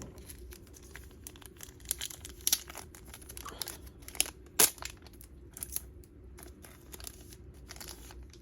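Plastic packaging crinkling and tearing as it is unwrapped by hand: irregular crackles and clicks, with a sharper snap about four and a half seconds in.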